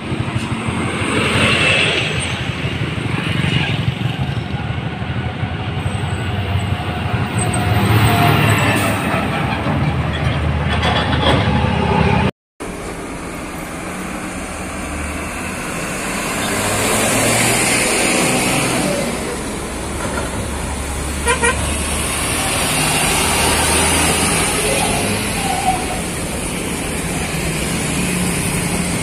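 Road traffic with trucks driving past, their diesel engines running under tyre noise, and a vehicle horn sounding at times. The sound drops out for a moment about halfway through.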